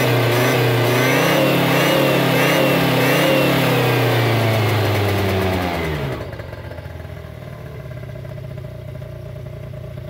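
Derbi Atlantis 50cc two-stroke scooter engine on its stock exhaust, held at high revs with the rear wheel spinning free. Around five seconds in the throttle is let off, the revs fall away over about a second, and the engine settles to a much quieter, steady idle.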